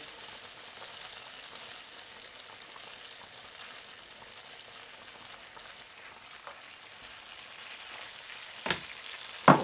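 Breaded chicken breasts sizzling steadily in a frying pan of bubbling sauce made of orange juice, vinegar and soy sauce. Near the end come two sharp knocks, the second louder.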